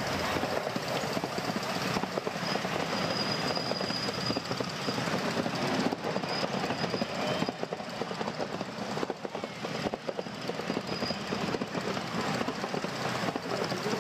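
Miniature railway passenger cars running along the track, wheels and couplings rattling and clattering steadily over the rails.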